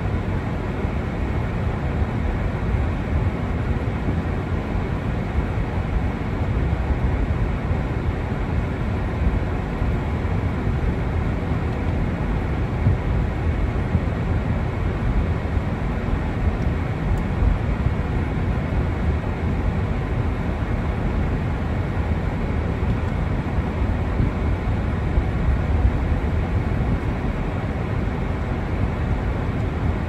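Steady road and engine noise inside a moving car's cabin, its tyres running on a wet road.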